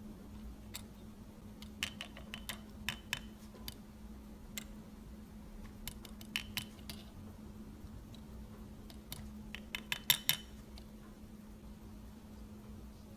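Light metallic clicks and taps of watchmaker's tweezers and a watch train bridge against a pocket watch movement, as the bridge is fitted and its pivot holes lined up over the wheel pivots. The clicks come in three short clusters, the last and loudest near the end.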